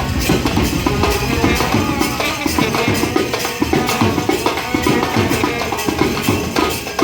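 A band playing loud, fast music: drums and jingling percussion keep a steady beat under melody instruments.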